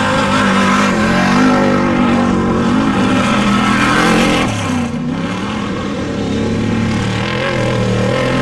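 Off-road race vehicle engine running hard at high revs. It eases off about five seconds in with a drop in pitch, then picks up again.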